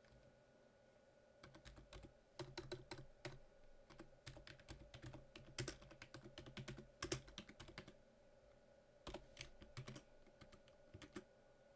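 Typing on a computer keyboard: quick runs of keystrokes, a pause of about a second and a half, then a second, shorter run.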